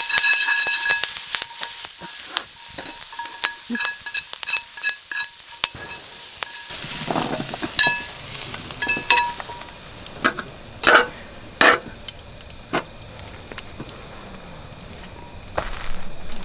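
Food sizzling in a frying pan while a metal utensil stirs it, clinking against the pan with short ringing taps. The sizzling dies down about seven seconds in, leaving scattered knocks.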